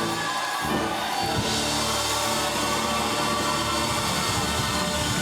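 Instrumental ensemble music with a drum kit, playing steadily.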